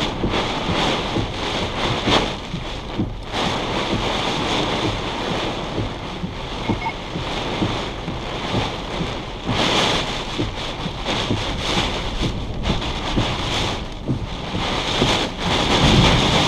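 Severe-thunderstorm straight-line winds and rain rushing and buffeting around a car, heard from inside, with gusts swelling about 2, 10 and 15 seconds in.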